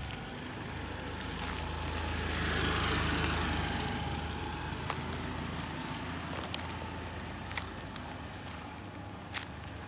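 A motor vehicle passes along the road, its engine and tyre noise growing louder to a peak about three seconds in, then fading away. A few light clicks sound near the middle and near the end.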